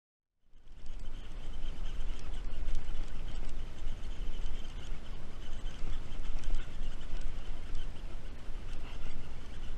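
Wind rumbling on the camera microphone over a steady high-pitched chorus of calling animals, starting just after a moment of dead silence.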